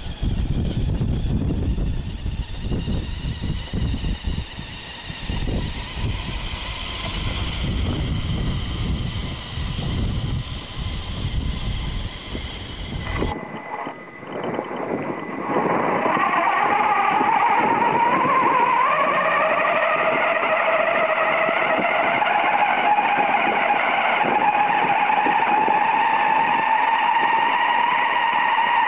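Radio-controlled monster truck's motor and gears whining as it tows a loaded sled over snow. At first the whine is faint under a low rumble; about 13 seconds in it becomes loud and close, a steady whine with a higher overtone that climbs a little in pitch and then holds.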